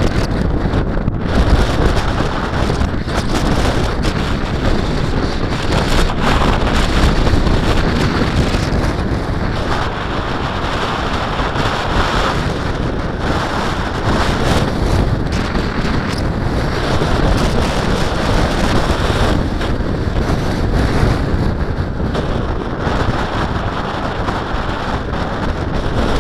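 Strong wind blowing across the microphone, rising and falling in gusts.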